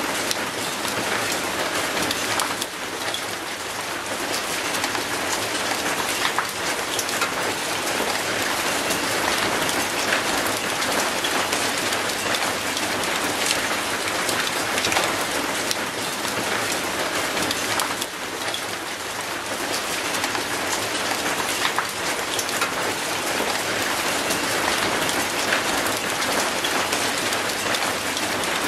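Steady rain falling on concrete and on an old rusty metal gate: a dense, even hiss of splashing drops with many small ticks of single drops.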